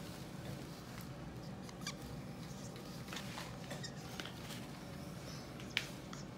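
A marker squeaking and scratching in short, separate strokes as it writes, over a steady low room hum.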